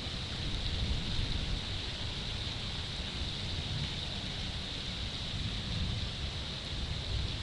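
Steady rain hiss during a thunderstorm, with wind buffeting the microphone in an uneven low rumble.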